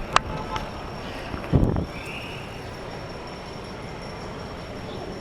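Steady road and wind noise from riding a bicycle through city streets. There is a click just after the start and a short, louder low thump about a second and a half in.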